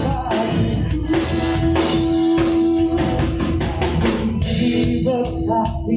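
Live band playing a rock-style worship song: a drum kit and guitar with a singer holding long notes.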